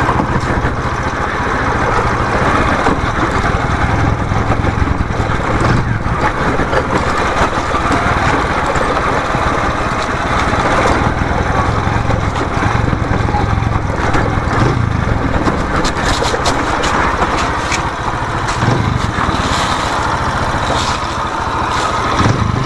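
Motorcycle engine running steadily as the bike is ridden, with a continuous low rumble.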